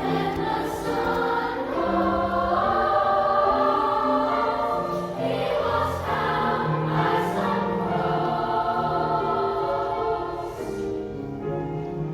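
A children's chorus singing in parts, with piano and flute accompanying.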